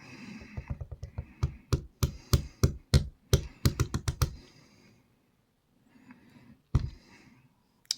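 Rapid clatter of small clicks and taps, about a dozen over three and a half seconds, then a single knock near the end: pins of a Rav Bariach dimple lock jumping out of their chambers as the lock is taken apart.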